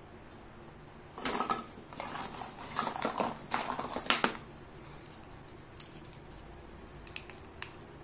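Plastic toy doctor-kit pieces clattering and rattling against each other as a toy stethoscope is pulled out of the pile. This starts about a second in and lasts about three seconds, followed by a few light clicks.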